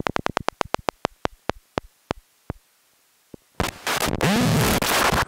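Particle Smasher + handmade noise synth putting out a train of sharp clicks that slow down and fade over about two and a half seconds. About three and a half seconds in, loud harsh noise bursts in, with a brief rising pitch sweep inside it.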